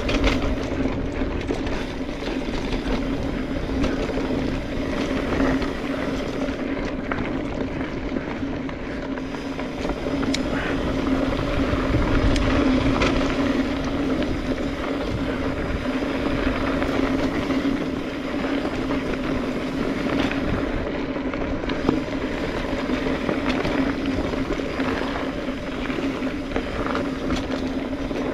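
Mountain bike rolling along a dirt trail: steady tyre rumble and wind on a chest-mounted camera, with a constant buzzing hum typical of the rear freehub while coasting. A few light clicks and rattles from the bike.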